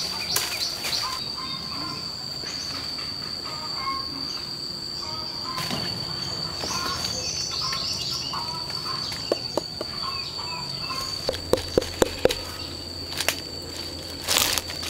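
Insects trilling in a steady high-pitched drone, with small bird chirps scattered through it. A few sharp clicks or knocks come in the last third.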